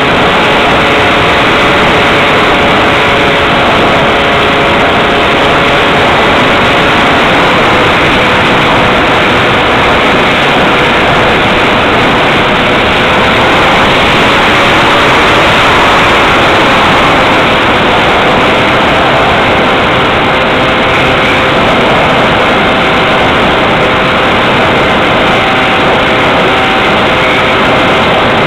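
Electric motor and propeller of a Multiplex Xeno flying wing in flight, picked up by the onboard camera: a steady drone of several tones that drift slightly in pitch, over a loud rush of wind.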